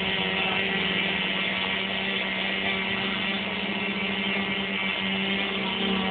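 Electric motor and propeller of an RC aerobatic plane (an MXS-R) running in flight: a steady drone with an even hiss over it.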